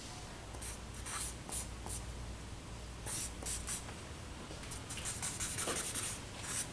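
Charcoal scratching on drawing paper in short strokes: a few separate strokes in the first half, then a quick run of strokes near the end.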